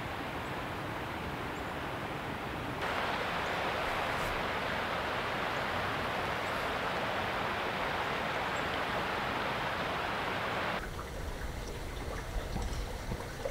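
Steady rush of river water. It grows louder about three seconds in, with water running over rocks, then drops off suddenly about eleven seconds in to a quieter background with a low rumble.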